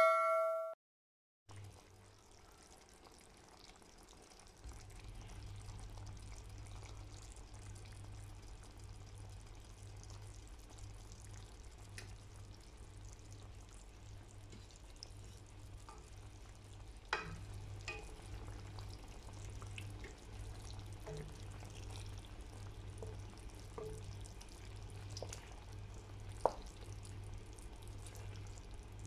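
Chicken adobo and boiled eggs simmering faintly in their sauce in a wok, with a few light clicks and taps of a wooden spatula against the pan over a steady low hum.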